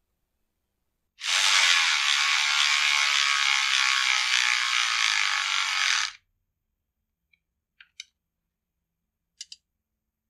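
Cordless electric ratchet running a screw into a chainsaw's rubber anti-vibration buffer: a steady whir for about five seconds that stops abruptly. A few light clicks follow near the end.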